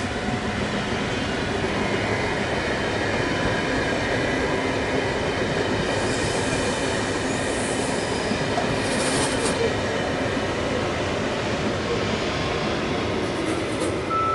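Double-deck passenger train running past on the near track: a steady rumble of wheels on rail with faint thin wheel squeal. A brief high hiss comes in about nine seconds in.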